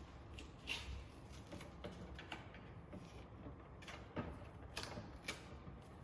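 Irregular clicks and knocks of a new Keurig K-Supreme coffee maker's plastic parts being handled and fitted during set-up.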